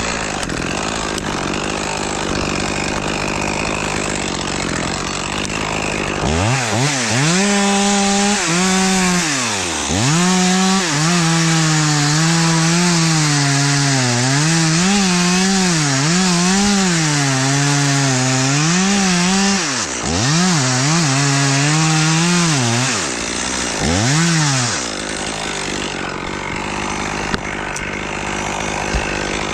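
Tree creaking: a long, pitched groan that wavers up and down, starting about six seconds in and breaking off a few times before it stops near the end, over a steady background noise.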